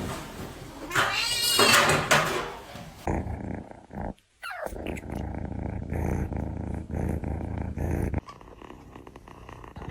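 A cat's long, wavering call in the first few seconds, then, after a brief break, steady purring for several seconds.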